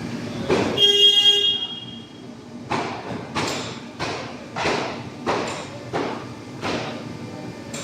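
A vehicle horn sounds briefly about a second in, then about seven sharp knocks follow at an even pace, roughly every two-thirds of a second.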